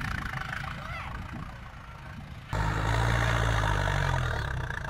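Heavy vehicle engine running with a low rumble. About halfway in, the sound cuts abruptly to a louder, steady engine drone.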